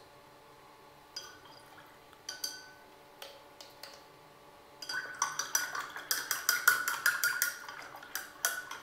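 A stick stirring copper sulfate into water in a glass jar. A few light taps come first, then from about five seconds in a rapid clinking of the stick against the glass, about five strikes a second.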